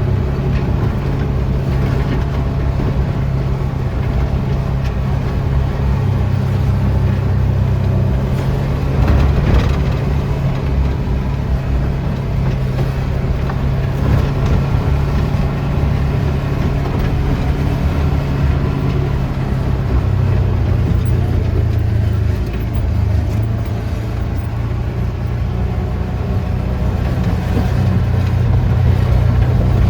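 A vehicle's engine running steadily while driving, with a change in its note about twenty seconds in.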